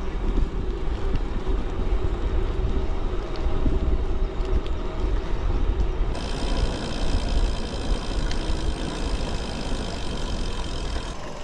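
Wind buffeting the microphone and bicycle tyres rolling on a gravel towpath while riding, a steady low rumble. About six seconds in a thin high-pitched whine joins in and stops near the end.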